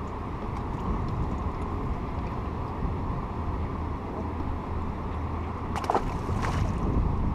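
Boat motor running steadily at low speed, with water and wind noise. There is a brief sharp knock and squeak about six seconds in.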